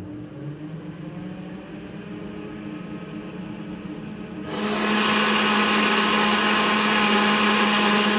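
NutriBullet blender motor running steadily, muffled under a sound-reducing enclosure hood. About halfway through the hood is lifted and the blender suddenly becomes much louder and brighter.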